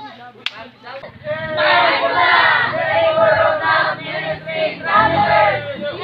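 A group of young people's voices singing and chanting together, loud from about a second and a half in.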